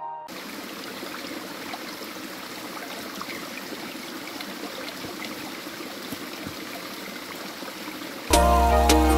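Small forest stream running over rocks, a steady rush of flowing water. Loud background music cuts in suddenly near the end.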